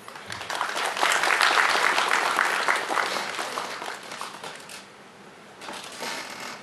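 Audience applauding. The clapping swells within the first second, then tapers off and dies away about five seconds in, with a short, weaker burst again near the end.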